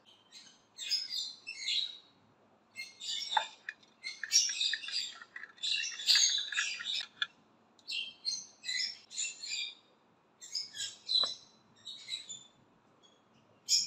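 Birds chirping in quick clusters of high chirps, with short pauses between the clusters.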